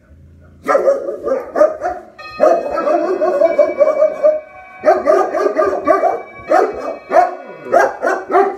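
German Shepherds barking, rapid loud barks in several runs with short breaks between them: territorial alarm barking at the front door.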